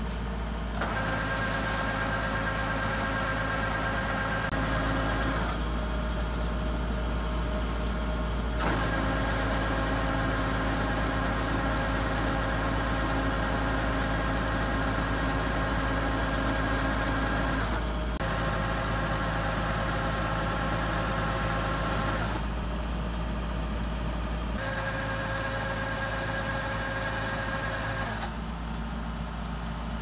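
Kubota DC-70G combine harvester's diesel engine running steadily while its auger unloads grain, a constant hum with higher whining tones. The whine and hiss drop out and come back abruptly several times.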